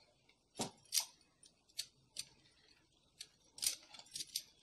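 Wire whisk beating thick cake batter in a stainless steel bowl, its wires clicking and scraping against the metal in irregular strokes, about two a second.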